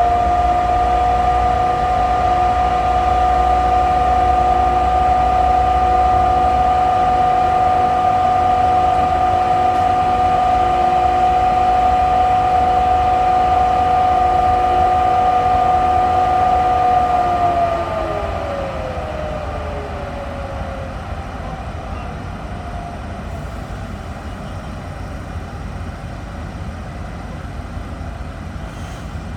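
Class 18E electric locomotive whining on a steady high pitch. About two-thirds of the way through, the whine glides down in pitch and fades, leaving a lower, noisy rumble.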